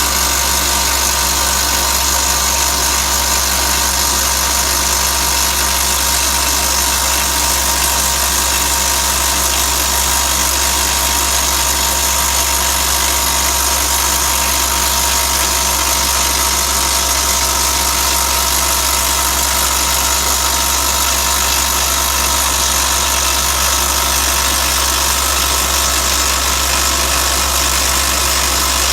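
Atlas Copco Flexiroc surface drill rig running loud and steady, a continuous mechanical din with a deep hum underneath and no breaks.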